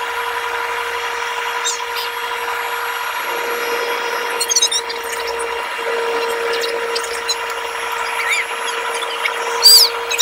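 Jet airliner cabin noise during the climb after takeoff: a steady engine hiss with a constant hum tone. A few brief scraping squeaks sound about halfway through, and a louder one just before the end.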